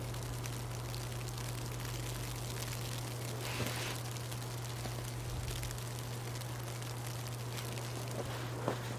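Steady low hum and faint hiss of outdoor background, with a few soft crunches in snow, one about halfway through and one near the end.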